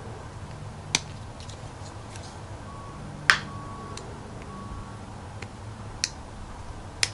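A few sharp little clicks, seconds apart, from handling a 1/6-scale toy pistol while working it apart to pull out its magazine. The loudest click comes about three seconds in.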